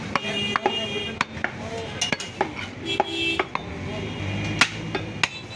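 Butcher's cleaver chopping beef on a wooden stump block: a quick, irregular run of sharp knocks with some metallic clinks between them.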